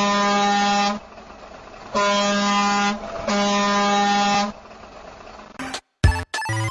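Truck horn sounding three long, steady blasts of one low tone, each about a second long with short gaps between them.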